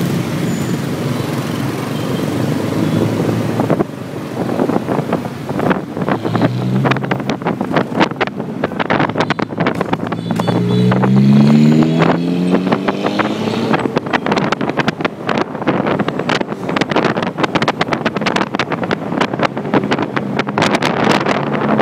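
Street traffic and a vehicle engine heard from a moving motorbike, with heavy wind buffeting on the microphone. A little past the middle, an engine revs up, its pitch rising for about two seconds.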